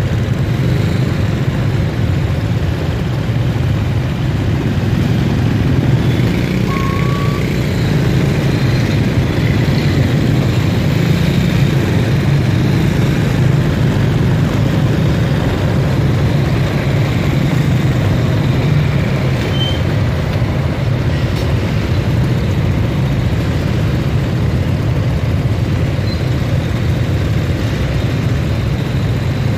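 Dense motorbike traffic heard from a motorbike riding slowly in it: a steady, loud rumble of small engines with no letup. A few brief faint high chirps come through now and then.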